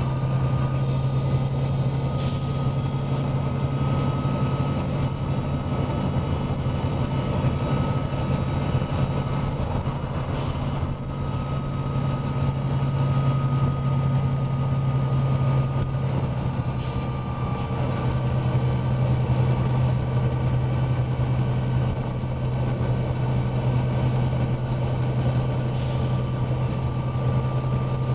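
Volvo B9TL double-decker bus's diesel engine running hard at a steady pace, heard on board as a strong steady drone with a thin whine above it. Four short hisses break in at intervals of several seconds.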